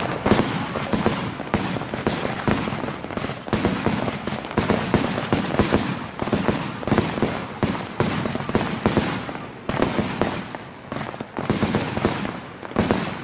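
Aerial fireworks going off: a dense, irregular run of bangs and crackles with no pause.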